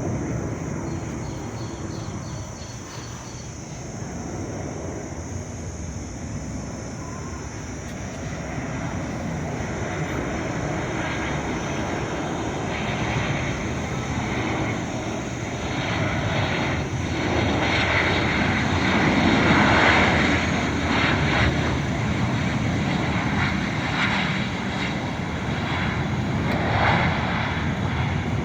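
Airplane engines running, the noise building steadily to its loudest about twenty seconds in, then easing a little.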